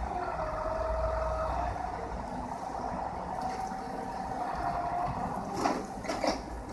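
Hydraulic excavator running at work, its engine and hydraulics making a steady whine that steps up in pitch partway through over a low rumble. Two sharp knocks near the end, from the machine striking or dropping rubble.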